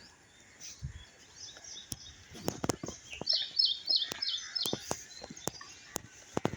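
Wild birds chirping, one bird giving a quick run of about six high repeated notes in the middle, over a steady outdoor background hiss. Light sharp ticks come about twice a second throughout.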